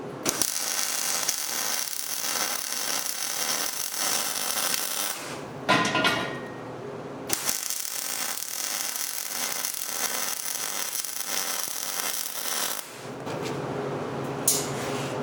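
Welding arc crackling and hissing steadily while a post cap is welded onto a fence post, in two long runs of about five seconds each with a short pause between them.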